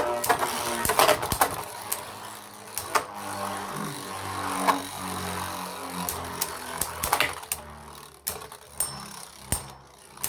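Two Beyblade Burst spinning tops (Brave Valkyrie and Mirage Fafnir) whirring in a plastic stadium and colliding, with many irregular sharp clacks of hits. The hits come more sparsely toward the end.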